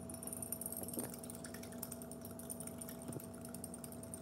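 Small metal whisk stirring quickly in a glass mason jar, a fast run of light clinks and ticks against the glass as sugar is stirred into hot water to dissolve.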